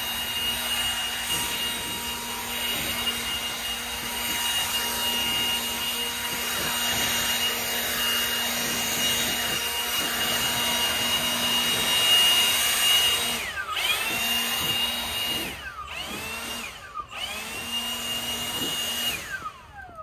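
Cordless battery leaf blower running with a steady high whine and a rush of air as it clears grass clippings off concrete steps. About two-thirds through, the motor cuts out and spins back up a few times as the trigger is released and squeezed again. Near the end it winds down with a falling whine as the trigger is let go.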